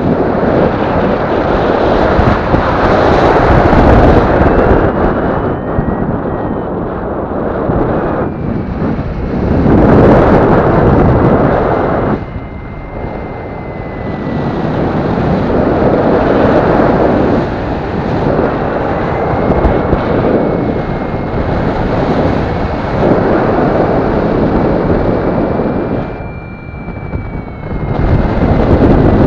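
Wind buffeting the microphone of a harness-mounted camera in paraglider flight, a loud rushing that swells and eases, dropping away briefly twice. A faint high tone wavers slowly in pitch beneath it.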